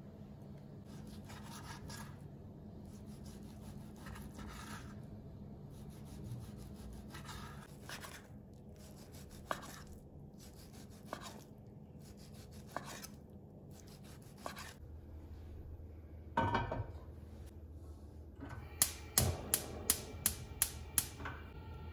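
Chef's knife slicing raw beef thin on a cutting board: the blade rasps through the meat, then knocks on the board with single cuts every second or two. Near the end comes a clatter, then a run of about seven sharp clicks, about three a second, from a gas stove's igniter.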